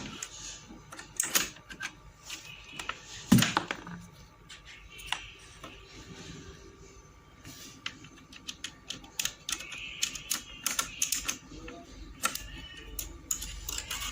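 Mechanical keyboard keys clicking and clacking irregularly, with a couple of louder clacks about a second and three seconds in, over background music.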